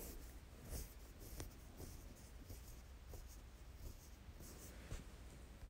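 Faint scraping in a stainless steel pan, with a few light taps, as cooked cauliflower rice is scooped out into a glass container.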